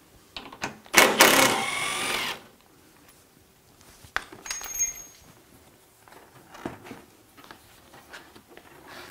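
A cordless drill-driver runs for about a second and a half, its pitch rising and falling as it spins a fastener on the car's front end. A few light clicks and taps follow.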